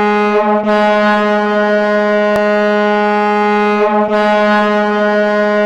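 Ice hockey arena goal horn sounding one long, steady blast on a single low note, wavering briefly twice.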